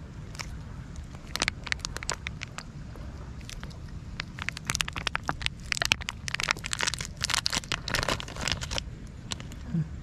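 Crackling of a plastic cat-treat pouch handled in the hand, mixed with a cat licking and chewing the bonito treat. The sharp crackles come thickest from about four to nine seconds in.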